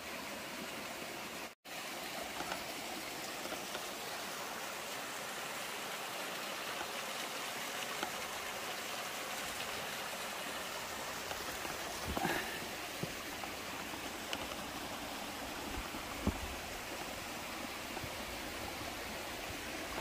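Steady rush of creek water flowing over rock slabs, with a brief gap near the start and a few soft low thumps about twelve and sixteen seconds in.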